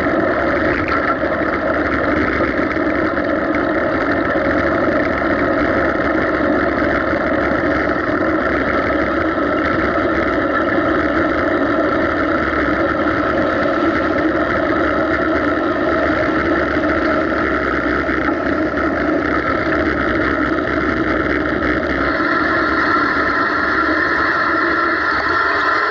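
Steady road noise while cycling beside a busy road: a constant hum of wind, tyres and passing car traffic, taking on a little more hiss near the end.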